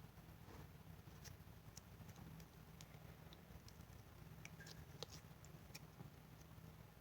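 Faint, scattered little clicks and sticky pops from hands working putty-like slime, at irregular moments over a low steady hum.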